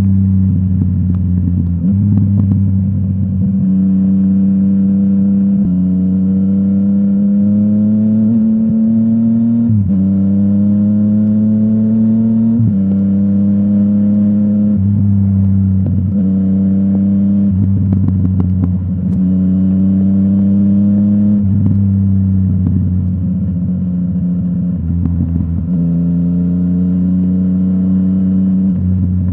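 Yamaha MT-09's inline three-cylinder engine through a full Akrapovic exhaust, running under way. Its note repeatedly rises slowly and then drops sharply, every two to three seconds.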